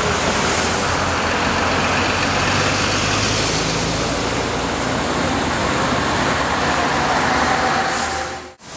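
Truck-mounted Cappellotto CapStreet suction road-cleaning machine running: a steady rushing noise over a low engine hum. It cuts out abruptly about eight and a half seconds in and comes straight back.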